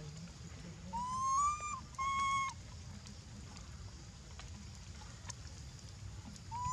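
Young macaque giving two high, clear cries about a second in, the first rising slightly and the second held level, the tonal coo of a distressed infant.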